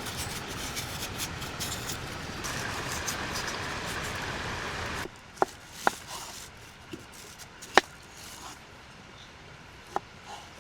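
A steady rushing noise, like heavy rain or fast-flowing water, cuts off abruptly about five seconds in. It gives way to a quieter background broken by a few sharp clicks or pops, the loudest about three seconds later.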